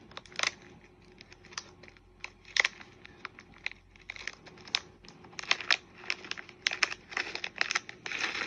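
Plastic packaging crinkling and rustling as small bags of craft beads are handled, with many irregular sharp clicks.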